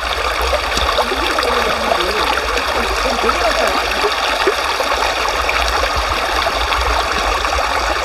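Mountain valley stream running steadily over rocks, an even rushing of water.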